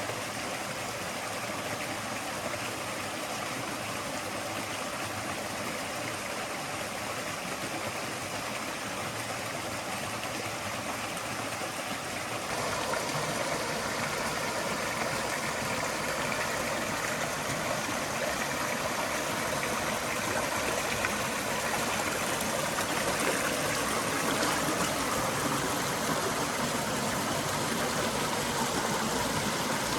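Flowing stream: a steady rush of water that becomes louder and brighter suddenly about twelve seconds in.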